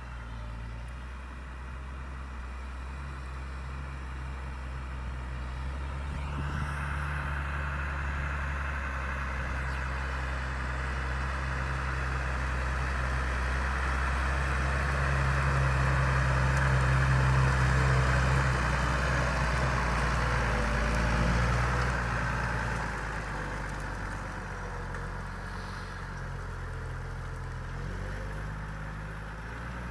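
Deutz-Fahr Agrotron 6.45 S tractor's diesel engine running steadily while pulling a plough, growing louder to a peak a little past halfway, then falling off again.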